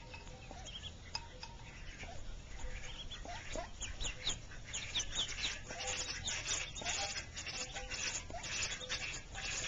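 Mallard ducklings peeping: many short, high chirps that grow busier and louder about halfway through.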